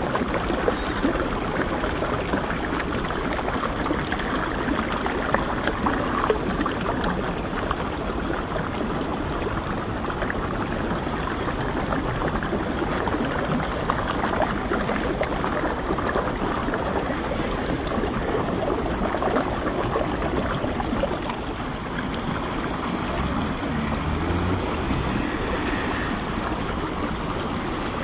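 Shallow rocky stream flowing and splashing over stones: a steady rush of running water.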